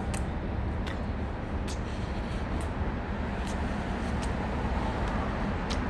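Steady low rumble of a vehicle running, with a few faint, sharp clicks at irregular intervals.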